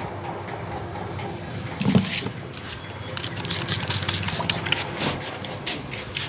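Hands slapping and tapping on the head during a head massage: one heavy thump about two seconds in, then a quick, irregular run of sharp slaps. Steady street traffic noise runs underneath.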